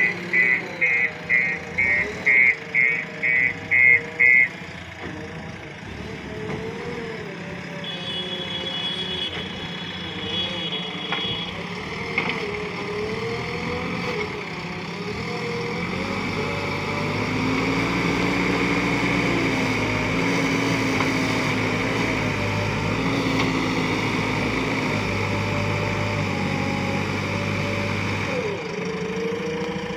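A backhoe loader's reversing alarm beeps rapidly, about three beeps a second, for the first four seconds or so. A diesel engine then runs with its pitch rising and falling, working louder and heavier from about halfway through as the machine digs and loads.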